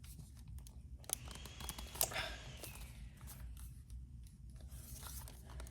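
Plastic handling noises: scattered small clicks and rustles of a cordless phone's parts and wrapping being handled.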